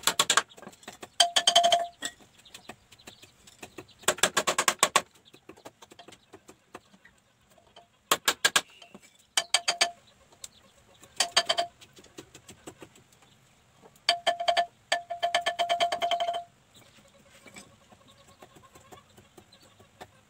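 Wooden beaters of a bamboo gamelan windmill clattering against slotted bamboo tubes as the axle is turned by hand, in about eight short bursts of rapid knocks. Several bursts ring with a clear note, the longest lasting about a second and a half.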